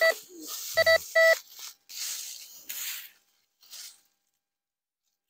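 Metal detector sounding short electronic beeps at one steady pitch, three of them in the first second and a half, the signal that metal lies under its search coil. Dry leaves rustle as they are pushed and raked through.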